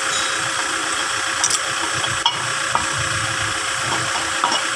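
Steady machine hum, with a few light metal clicks as a new wheel hub bearing is turned on a brake rotor to line up its bolt holes.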